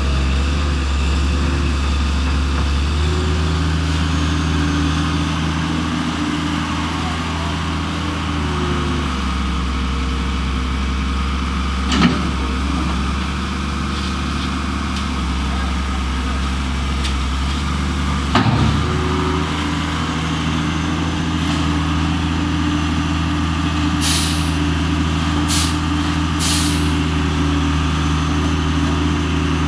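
A vehicle engine idling steadily, with two sharp knocks partway through and three short hisses near the end.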